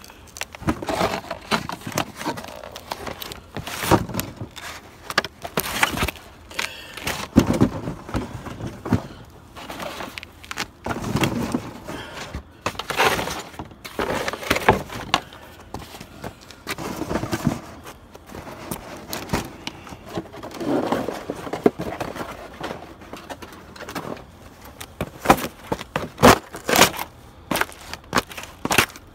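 Cardboard shoe boxes being crushed flat under boat shoes: repeated, irregular crunches and crackles of folding, tearing cardboard.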